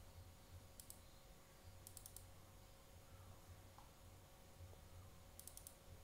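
Faint computer keyboard typing: three short bursts of a few keystrokes each, about a second in, about two seconds in and near the end, over near silence with a low hum.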